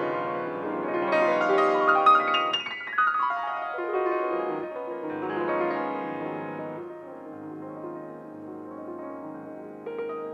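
Piano music: struck notes and chords ringing and fading, growing softer in the second half.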